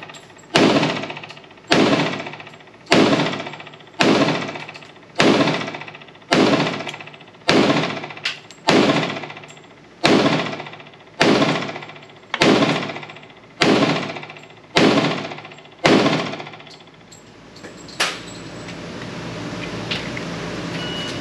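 FN FNX-45 .45 ACP pistol fired in slow, steady aimed fire, about one shot a second for roughly fourteen shots, each report trailing off over most of a second. After a pause of about two seconds, one more shot comes near the end.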